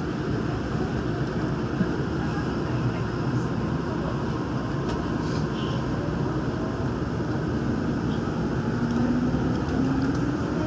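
Daegu Metro Line 3 rubber-tyred straddle-beam monorail car, heard from inside, pulling out of a station. Steady running noise from the tyres and drive, with a motor whine that rises in pitch near the end as the train gathers speed.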